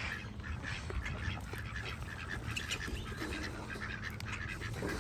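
A flock of ducks quacking, many short calls overlapping, over a low steady rumble.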